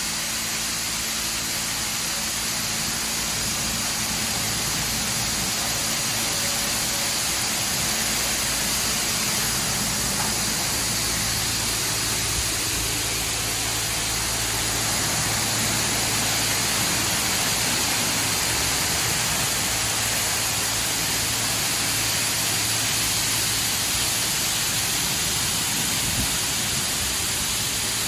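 Superior Sidetrac 700 touch-free car wash spraying high-pressure water over the car, a steady rushing hiss. A low hum runs underneath from about ten seconds in until a few seconds before the end.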